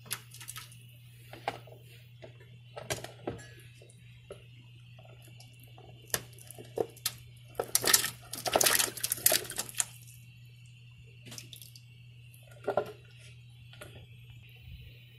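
Pumpkin chunks being dropped into a pot of boiling water, making scattered small splashes and knocks against the pot, then a longer run of splashing and clatter about eight seconds in. A steady low hum runs underneath.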